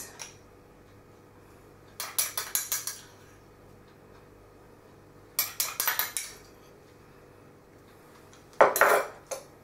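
Metal spoon clinking and scraping against a small dish as taco sauce is spooned out, in three short bursts of quick clinks.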